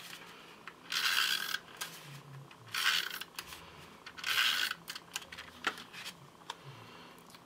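A tape runner (Tombow MONO adhesive applicator) is pulled across the back of a card-stock panel in three short strokes, each about half a second, laying down adhesive. A couple of light clicks follow near the end.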